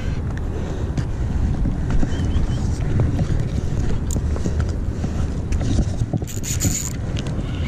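Wind buffeting the camera microphone in a steady low rumble, with small clicks of rod, reel and line being handled and a brief high hiss about six seconds in.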